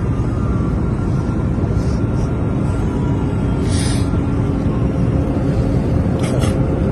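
Steady loud rumble of airliner cabin noise, from the engines and air rushing past, with music faint over it. Two short rustles from handling the phone, about four seconds in and again near the end.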